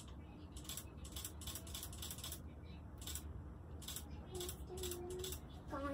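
Camera shutter clicking repeatedly in short, irregular runs over a low steady room hum.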